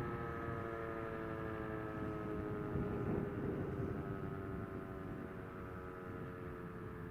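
Civil-defence sirens, an ECN and an E57, sounding the "Warnung" wailing signal. The many-pitched tone sinks slowly and fades as it goes.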